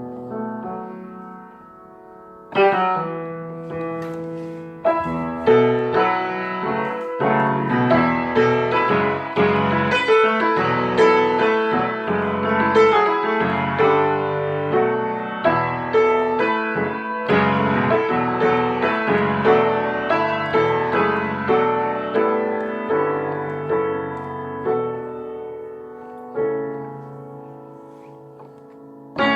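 Piano music: a soft opening, a loud chord about two and a half seconds in, then a flowing run of notes and chords that thins out near the end.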